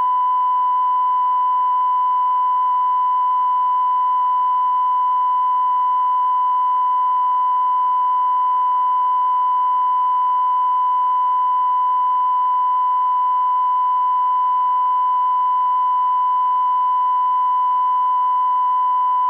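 Television test-transmission tone sounding with a test card: a single steady, unbroken tone over faint hiss.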